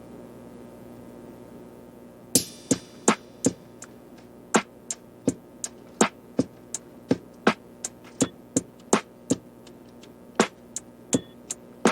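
Background music with sharp electronic percussion hits in an uneven beat, starting about two seconds in over a low steady hum.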